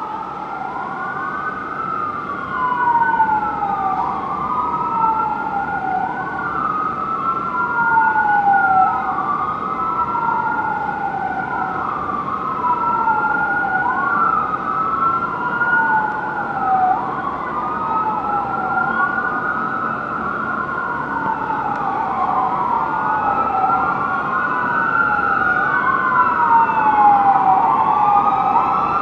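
Emergency sirens of a fire engine and an ambulance wailing. Each rises and falls in pitch about every two seconds, and the two overlap out of step over a low rumble of traffic.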